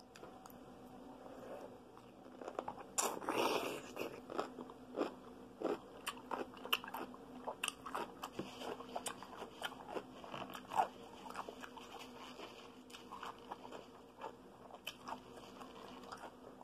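Biting into a large whole dill pickle with a loud crunch about three seconds in, followed by repeated crunching and chewing of the mouthful.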